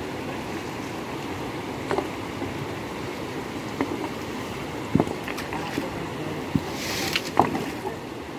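Steady rush of a shallow, rocky mountain river, with a few short sharp knocks scattered through it.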